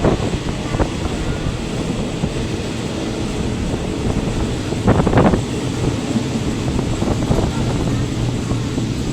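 Steady rumble and wind rush of a second-class fan-cooled passenger coach running along the line, heard with the window open. There is a brief louder burst about five seconds in.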